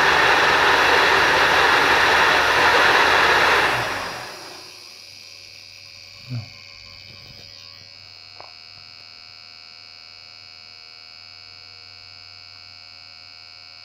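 A 3D-printed ducted fan running at full speed, a loud steady rush of air and motor, winding down about four seconds in as it is throttled back. After that only a faint steady hum with high whining tones remains, with a brief low sound near six seconds and a small click about two seconds later.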